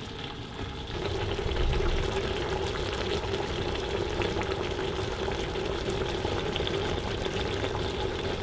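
Curry lamb simmering in a stainless steel pot on an induction hob at high heat: a steady bubbling and sizzling hiss with a low hum, which grows louder about a second in.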